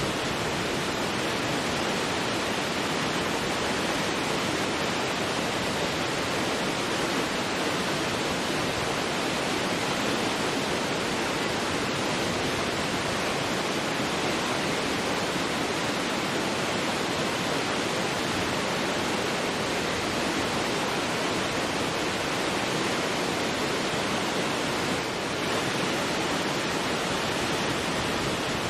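A massive waterfall in full flow: a steady, dense rush of falling water.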